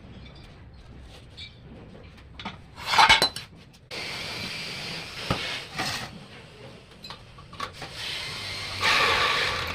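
Metal parts and tools clinking and clattering during repair work on a needle vibrator rod, loudest in a clatter about three seconds in, with stretches of steady scraping noise after it.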